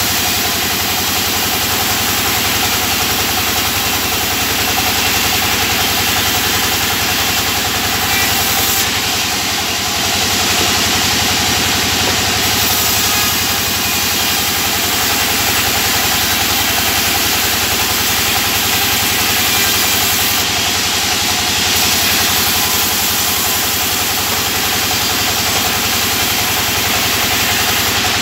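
Band sawmill running steadily while resawing a board into thin planks: a continuous mechanical drone, with a brighter hiss that comes and goes twice.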